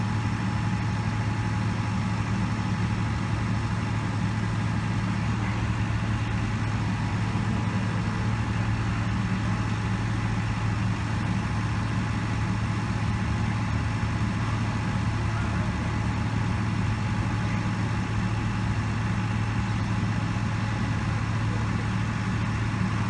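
Engine of a Soilmec SM-14 mini piling rig running steadily at an even pitch while its hydraulic drill mast is swung towards upright.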